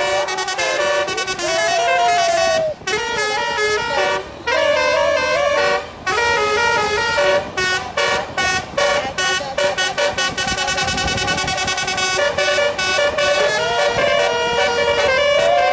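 Bus telolet horn, a Basuri multi-tone air horn, playing a melody in stepped notes, with runs of quick short notes in the middle and a few gliding notes.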